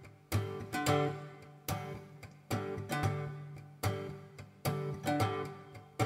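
Acoustic guitar strummed in a slow, steady rhythm: a chord struck about once a second or a little faster, each one ringing and fading before the next.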